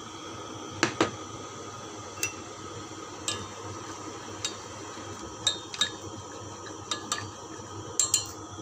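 A utensil stirring liquid in a stainless steel saucepan, clinking sharply against the metal pan about a dozen times at uneven intervals, over a steady low hum. The pan holds milk and melted butter heating toward a boil.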